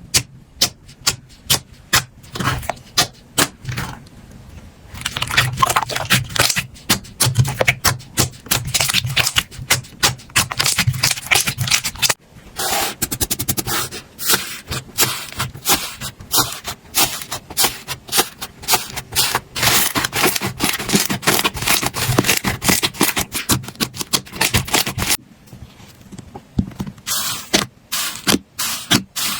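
Slime being squeezed and poked by hand, making dense, irregular crackling clicks and pops that ease off briefly twice.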